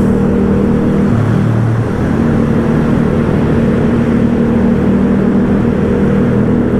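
Motorcycle engine running steadily while riding, with rushing road noise. The engine note shifts briefly about a second in, then settles back to a steady drone.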